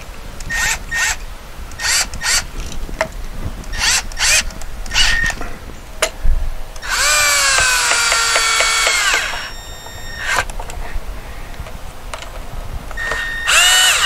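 Cordless drill-driver driving screws on a duplex receptacle in an electrical box: a few short motor bursts, then a louder run of about two seconds in the middle whose pitch rises and falls, and one more short burst near the end.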